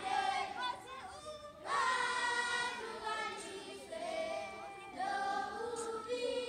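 A group of schoolchildren singing together unaccompanied, in sustained phrases. A fresh phrase starts about two seconds in and again about five seconds in.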